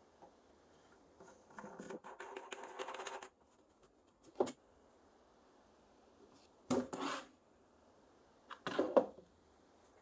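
Plastic pipe fittings and a plastic paint-bucket lid being handled: a stretch of rubbing and rattling about two seconds in, then a sharp knock and a few short clatters, the loudest near the end.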